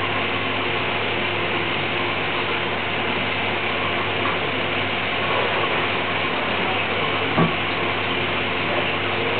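Steady machine hum with a hiss, and a single click about seven seconds in.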